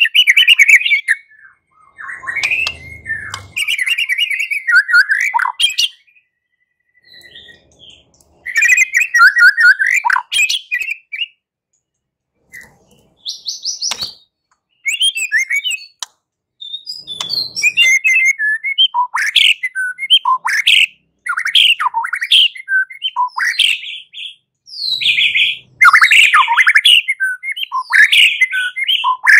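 White-rumped shama (murai batu) singing loud, varied whistled phrases in bursts with short pauses between them, turning into a fast, dense run of notes in the second half: its fighting song.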